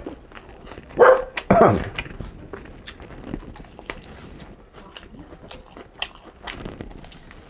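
Close-up eating of chicken fried rice and chicken: chewing with many small wet clicks and smacks. Two short pitched cries, about a second in and half a second later, are the loudest sounds.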